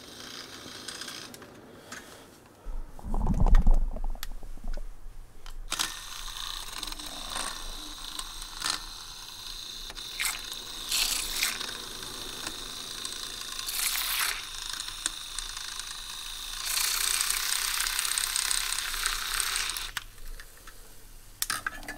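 Handheld battery milk frother whisking a mug of coffee: a steady high whir with a faint whine, switched on about six seconds in and off about two seconds before the end. A loud low rumble comes a few seconds in, before the frother starts.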